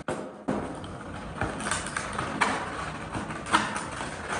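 Scuba harness webbing being handled and adjusted: rustling and scraping of the straps, with a few short clicks and knocks from the hardware.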